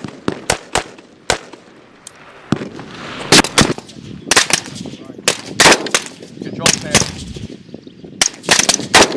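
M16 rifle gunfire, 5.56 mm: a string of sharp single shots at uneven spacing, some in quick pairs.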